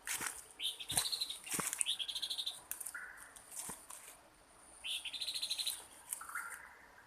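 A bird calling: short rattling trills repeated several times, alternating with lower buzzy notes, over a steady high insect drone. A few sharp cracks are heard between the calls.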